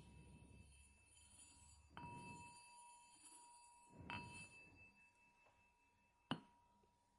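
A bell struck three times, about two seconds apart, each strike leaving a faint high ringing tone that lingers; the last strike is the sharpest and loudest.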